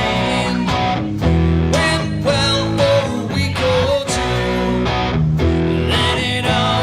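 Live rock band playing, guitars to the fore, with bass and a steady drum beat underneath.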